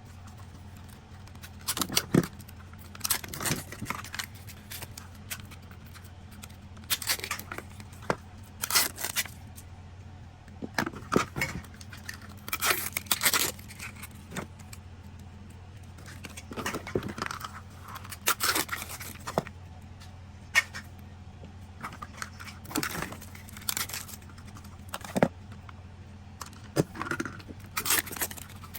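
Small plastic toy capsules and their wrappers being handled and opened: irregular bursts of plastic clicking, crinkling and tearing.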